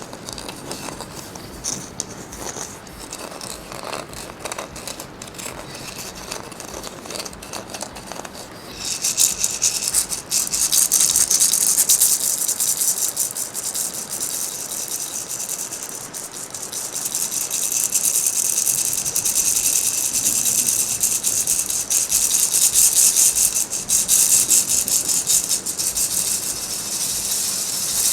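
A handheld rattle shaken rapidly and without a break. It starts about a third of the way in, eases off briefly past the middle, then picks up again, with a softer rustle before it begins.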